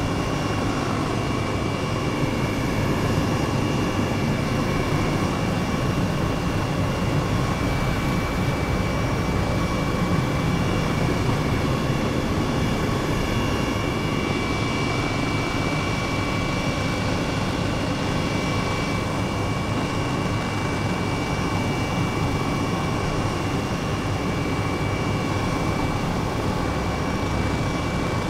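Helicopter in flight, running steadily: a continuous low rumble with a steady high-pitched whine over it.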